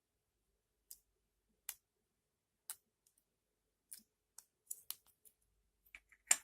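Slime being mixed and worked by hand, giving scattered sharp sticky clicks and pops, about ten in all, the loudest near the end.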